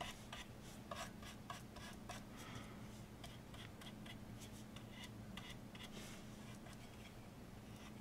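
Faint scratching and light taps of a paintbrush smoothing a decoupage cutout onto a small wooden birdhouse, the strokes thinning out after about three seconds, over a steady low electrical hum.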